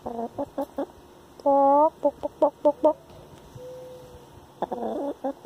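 Hen clucking in a run of short, quick notes, with one longer drawn-out squawk about a second and a half in and a soft low murmur midway.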